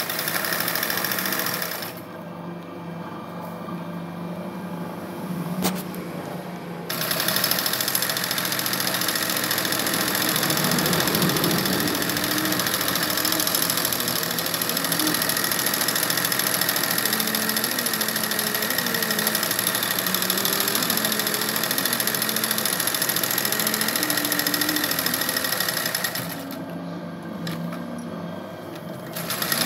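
Domestic sewing machine running for machine embroidery on a cotton saree, its needle stitching steadily. It drops away for about five seconds a couple of seconds in, runs steadily for about twenty seconds, then drops away again near the end.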